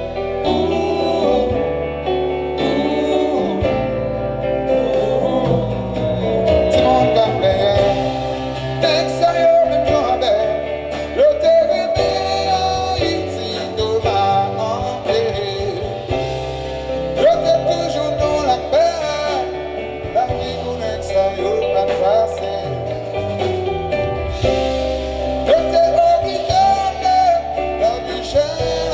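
Live band music with a steady bass line and guitar, and singing over it.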